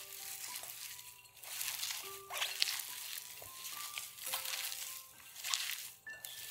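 Hands mixing shredded zucchini, carrot and enoki mushrooms in a glass bowl: a rustle with each squeeze and toss, about once a second, over soft background music of slow single notes.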